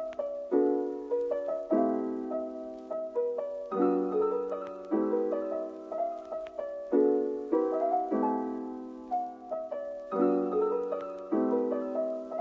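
Background music: a piano playing gentle chords, a new chord struck about once a second and left to ring.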